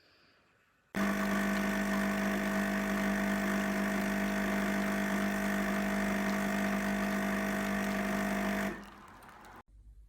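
Bean-to-cup coffee machine running a steady motor hum, its pump or grinder, starting suddenly about a second in and cutting off near the end.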